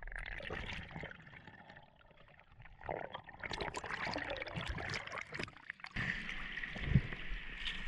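Water sloshing and splashing in small irregular bursts, with crackly clicks.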